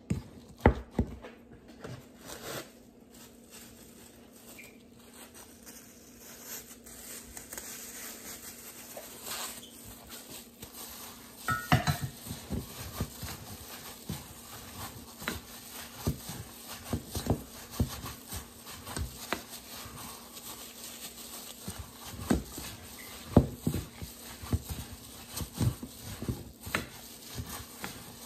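Ground meat and grated carrot filling being mixed in a ceramic bowl, first with a wooden spoon knocking against the bowl, then by a hand in a plastic glove squishing the mixture, giving irregular soft knocks throughout. A faint steady hum sits underneath.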